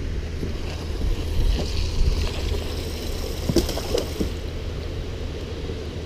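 Wind rumbling on the microphone over water lapping at a small boat, with a few light knocks and clicks about halfway through.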